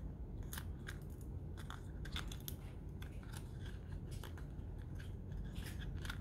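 Thin paperboard packaging handled in the hands: irregular light scrapes, rubs and small ticks as a folded earbud sleeve is turned and slid open.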